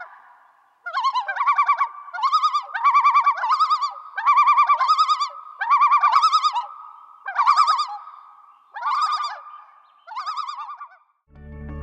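Common loon calling: a run of quavering, wavering phrases repeated about once a second, stopping just before the end.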